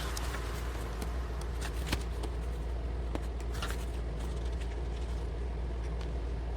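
Steady low hum with a few scattered light clicks and soft rustles.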